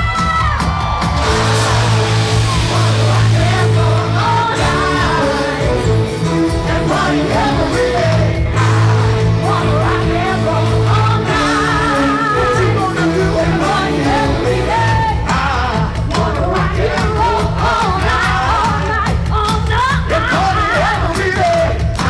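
Loud pop-rock music with singing over a steady bass line, with some yelling and whooping mixed in.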